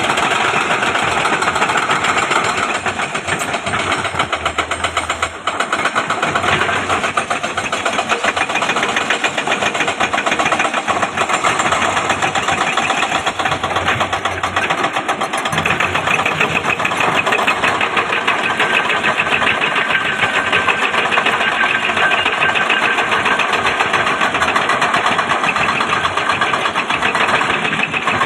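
Excavator's diesel engine running steadily, with a fast, even knocking beat.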